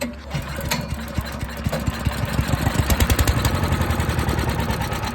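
Wood chipper's small gasoline engine running with a fast, even beat of firing strokes, getting louder over the first few seconds. It is running on a carburetor that is not feeding fuel properly.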